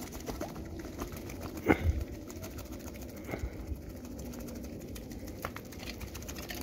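A group of cats eating wet food, with small wet clicks and smacks, while a hand scrapes food out of a tin can. A short animal call sounds about two seconds in and another about three seconds in.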